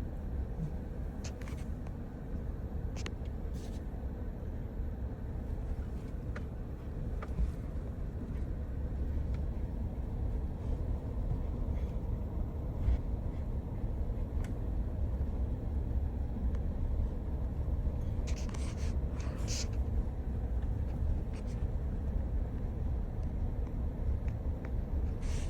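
Car driving slowly: a steady low rumble of engine and road noise, with scattered light clicks and a couple of short rustling noises about three-quarters of the way through.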